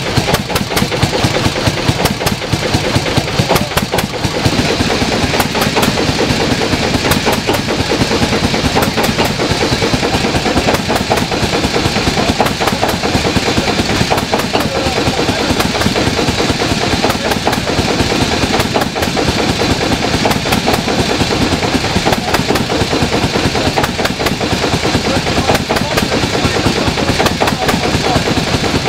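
Old Deutz stationary engine running steadily, its flywheel turning, with a rapid, even clatter.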